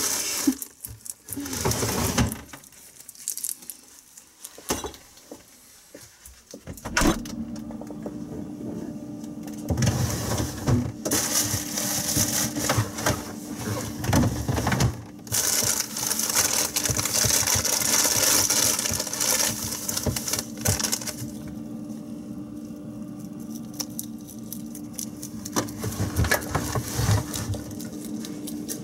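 A pet rabbit chewing and crunching vegetables, a dense run of small rapid crunches and crackles, with a quieter lull early on. From about seven seconds in a steady low hum runs underneath.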